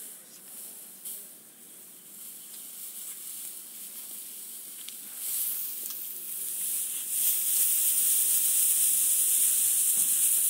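Dry straw rustling with a dense, hissy sound as armfuls of it are handled and spread out on the ground. It starts faint and becomes loud from about halfway through, as the straw is carried close.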